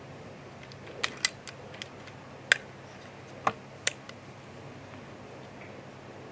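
About seven sharp clicks and knocks at uneven intervals, the loudest about two and a half seconds in, over a steady hiss with a low hum.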